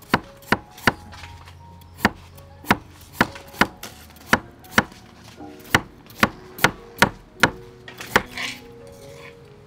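Cleaver slicing a carrot into thin rounds on a wooden chopping board: about fifteen sharp knocks of the blade hitting the board, at an uneven pace with short pauses between runs of cuts.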